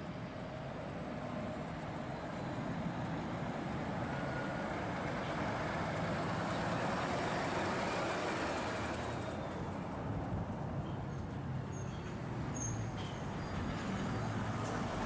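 Heavy lorry passing: engine and tyre noise build over several seconds to a peak a little over halfway. The high hiss then drops away fairly suddenly, and a few short, faint high squeaks follow near the end.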